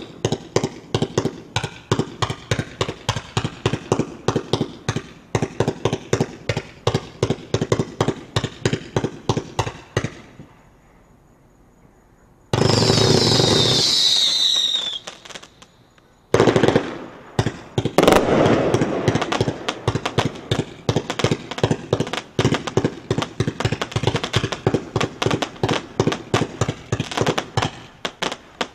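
A 142-shot consumer fireworks cake, Hotspot 'Red, White, Blue, Everywhere' (H5227), firing shot after shot at about three or four a second. It pauses about ten seconds in, gives a louder continuous rush with a high falling whistle, pauses again briefly, then resumes with rapid shots, densest and loudest just after it restarts.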